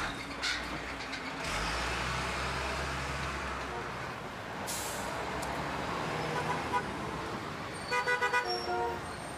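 Road traffic: engines running, with a heavy vehicle rumbling past in the first few seconds, then a vehicle horn giving a quick run of short beeps about eight seconds in.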